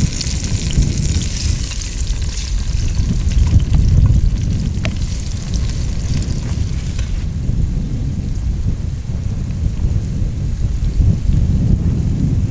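Wind buffeting the microphone, a heavy low rumble, with a higher hiss over it that fades out after about seven seconds.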